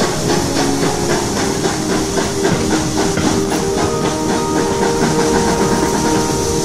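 Steam-hauled train on the move, heard from a carriage window: a loud steady hiss of steam and rushing air with rhythmic exhaust beats from the locomotive and the clatter of carriage wheels on the rails.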